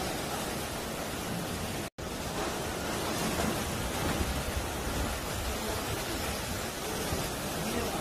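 Sea waves washing and breaking over a rocky shore: a steady rushing surf. The sound cuts out completely for an instant just under two seconds in.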